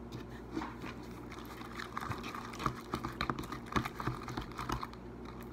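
Spoon stirring sticky glue-and-Borax slime in a plastic bowl, making irregular wet squelches and clicks. The mix is still gluey and has not yet firmed into slime.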